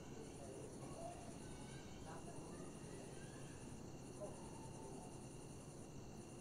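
Faint, steady trilling of crickets: a high ringing chorus on several pitches, its highest strand breaking off briefly about every two seconds.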